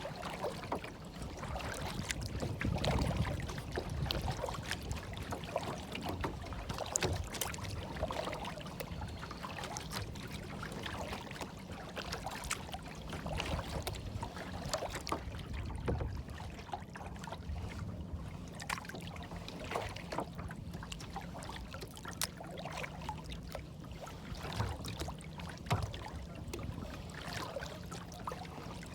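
Water lapping and splashing, with many small irregular splashes and drips over a low rumble, like small waves slapping against a hull or shore.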